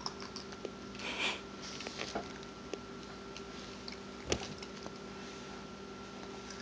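Faint taps and clicks of a toddler's fingers picking Cheerios off a plastic plate, over a steady hum of room tone, with one sharper knock about four seconds in.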